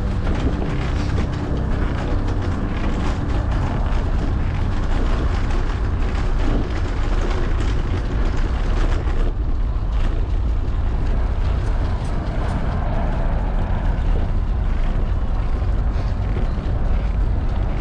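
Steady low rumble of wind buffeting a bike-mounted action camera's microphone while riding a fixed-gear bicycle, with tyre noise over brick pavers and many small clicks and rattles.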